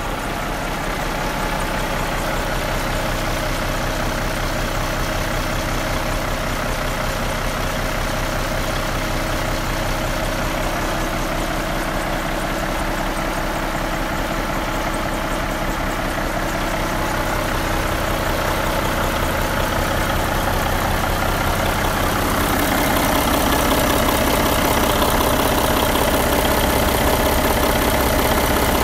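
Caterpillar 3406B inline-six turbodiesel truck engine idling steadily. It grows somewhat louder about two-thirds of the way through.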